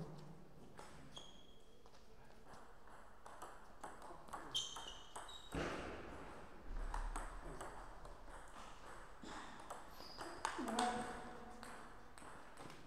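Table tennis ball clicking back and forth off paddles and table in rallies, the quick hits and bounces coming in uneven runs. A short voice call cuts in about two-thirds of the way through.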